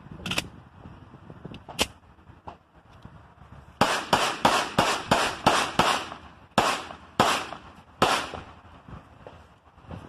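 Two metallic clicks as a Glock 44 .22 LR pistol is loaded, then a string of about eleven shots from it, fast at first and spacing out over the last three.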